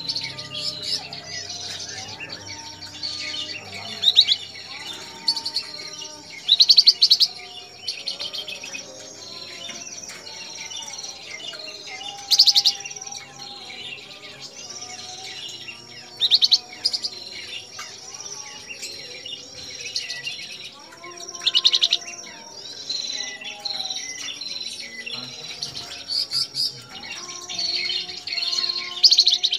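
Caged flamboyan songbird singing on and off: a burst of bright, high chirps every few seconds, over softer, lower whistling phrases and a steady high thin tone.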